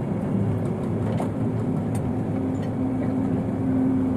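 Steady low machinery rumble with a few light clicks of metal tools. A steady hum comes in about halfway through and grows stronger toward the end.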